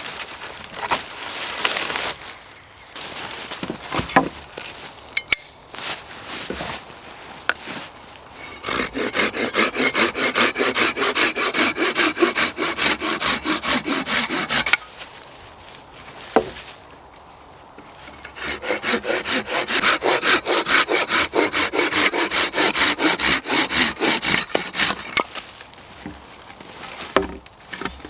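Hand saw cutting wood in two long runs of rapid, even strokes, the first starting about a third of the way in and the second after a short pause. Before the sawing there are a few irregular knocks and rustles.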